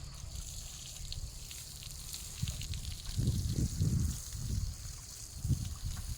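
Water trickling and splashing steadily as cabbage plants are watered, with a few low rumbles partway through.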